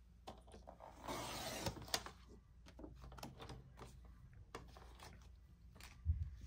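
Sliding blade carriage of a paper trimmer run along its rail, cutting through a laminated sheet: one short swish about a second in. Then light clicks and rustling as the cut plastic card is handled, and a soft thump near the end.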